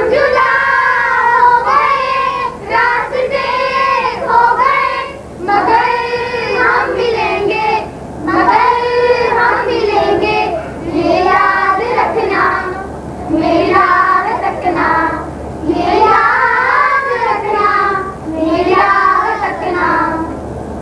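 Children's voices singing a song in phrases, over a steady low electrical hum.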